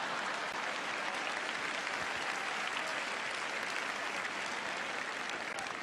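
Large audience applauding a comedy punchline, a dense, steady wash of clapping that eases slightly near the end.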